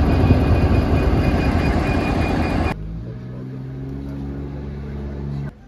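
Irish Rail Class 201 diesel locomotive running at the platform, a loud dense engine noise with hiss. About two and a half seconds in it cuts off suddenly to a quieter steady low hum.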